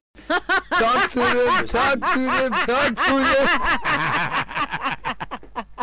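A woman laughing heartily and loudly, a rapid string of breathy 'ha' bursts broken by a few drawn-out ones.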